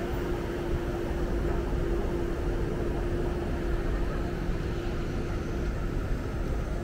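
Steady ambience of a large, echoing train-station concourse: a constant low rumble with a steady hum that weakens near the end.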